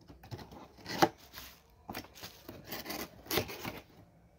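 A cardboard box's end flap being pried open by hand: cardboard scraping and rubbing, with a sharp snap about a second in and another hit a little after three seconds.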